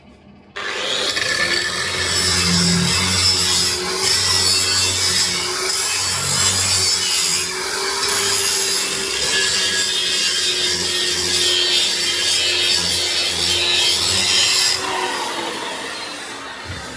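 Power abrasive tool grinding steel: a steady rasping over a motor hum, starting abruptly about half a second in and easing off near the end.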